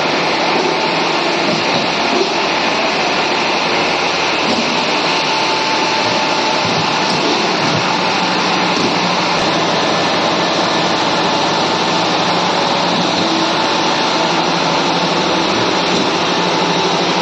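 Fly ash brick-making plant running: belt conveyors and a pan mixer giving a loud, steady mechanical noise that does not change.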